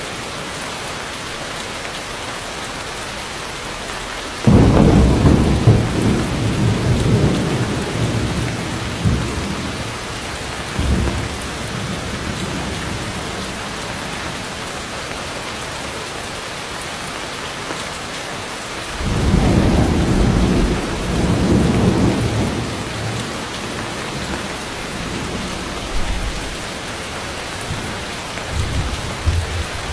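Heavy rain pouring steadily on forest foliage, with two loud rolls of thunder: one breaking suddenly about four and a half seconds in and rumbling for several seconds, another starting near twenty seconds in. A few shorter, fainter rumbles follow later.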